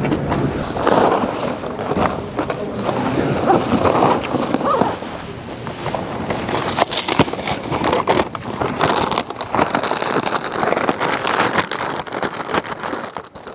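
Plastic snack bag loudly crinkling and rustling as it is handled and pulled open.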